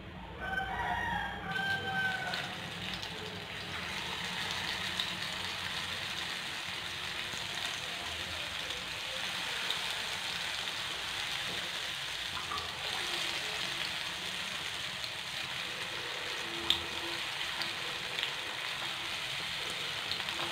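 Raw plantain slices sizzling in shallow oil on a nonstick tawa as they are laid in, the sizzle stepping up a few seconds in and then holding steady. A rooster crows once in the first two seconds, and there is a single sharp tap near the end.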